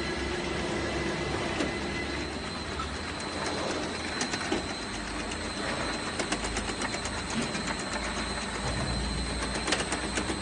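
Automatic piston filling and screw capping machine for motor oil running: a steady mechanical hum with a thin high whine, and many irregular clicks and knocks from about three seconds in.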